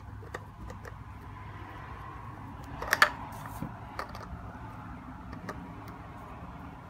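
Plastic pipe fittings being screwed together by hand: light rubbing and scattered small clicks, with a sharper plastic click about three seconds in, over a steady background hum.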